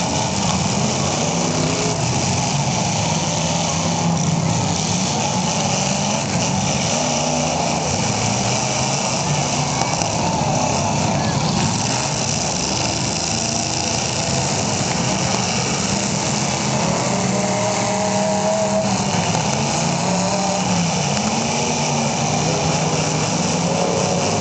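Engines of several demolition derby cars running and revving together, their pitch rising and falling unevenly as the cars maneuver.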